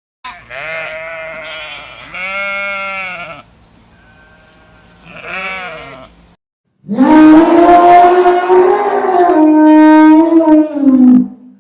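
Farm animals bleating: several rising-and-falling bleats in the first six seconds, then after a short gap one long, loud call lasting about four seconds.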